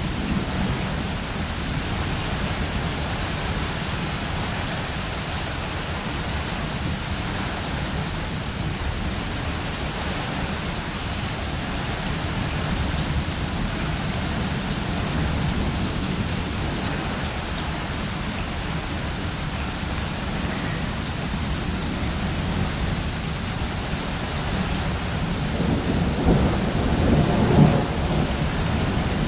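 Steady rain falling, with a roll of thunder rumbling in near the end.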